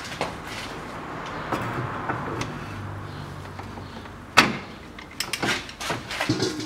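Sharp metal clicks and knocks of a long socket wrench and extension being fitted onto and worked against a tight transfer case plug. The loudest click comes about four seconds in, followed by a quick run of smaller clicks.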